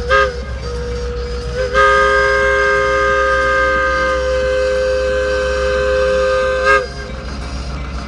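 Locomotive air horn sounding a multi-note chord: a brief blast, then about two seconds later one long blast of about five seconds that cuts off sharply. A steady low rumble runs underneath.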